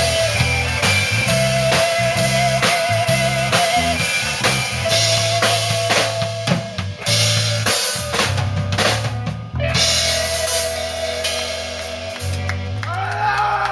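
Live rock band playing: a drum kit keeps a steady beat under bass guitar and electric guitars, with a held, wavering high note over the top. Near the end the beat drops away and sliding notes ring out as the song winds down.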